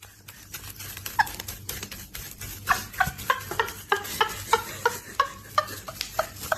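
A dog making a quick series of short, brief sounds, about three a second, over steady clicking and rustling.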